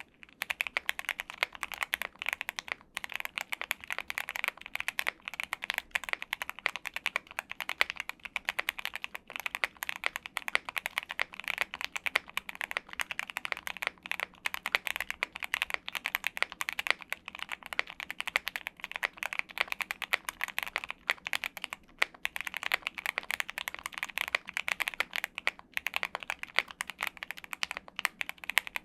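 Continuous fast typing on a Thera75 V2 75% custom mechanical keyboard: a dense stream of keystroke clacks, with only a few momentary pauses.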